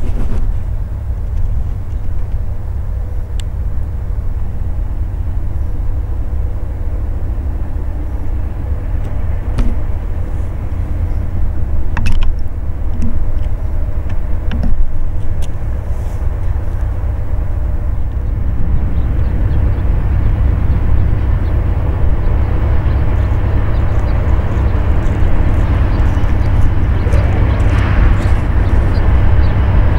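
Union Pacific diesel locomotive approaching with a train of empty grain hoppers: a steady low engine rumble that grows louder in the last third as it nears.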